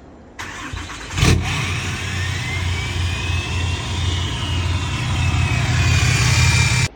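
Cummins turbodiesel pickup engine starting, catching with a loud surge about a second in, then running with a steady low rumble and a high whine that rises and then slowly falls away. The sound cuts off suddenly near the end.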